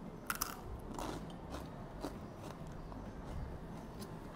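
A crunchy fried bodi (lentil dumpling) being bitten and chewed: a couple of sharp crunches just after the start, then fainter crackling chews.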